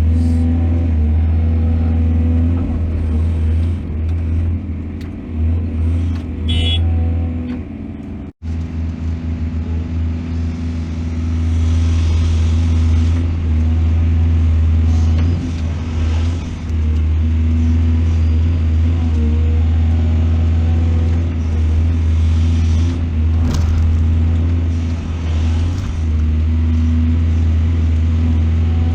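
Heavy diesel engine of an excavator at work, a steady low drone. The sound cuts out for an instant about eight seconds in.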